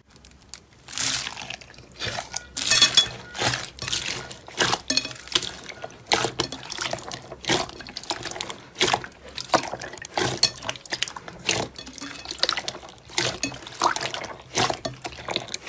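Hands squishing and kneading clear slime mixed with small foam beads: wet squelches and crackly pops that come irregularly, about one or two a second.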